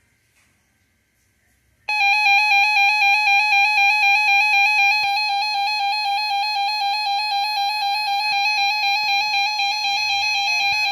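Emergency Alert System attention signal: after near silence broken only by a faint warble of SAME data tones, the steady two-tone alert tone starts suddenly about two seconds in and holds loud and unbroken, with a slight pulsing. It signals that an emergency alert message is about to be read.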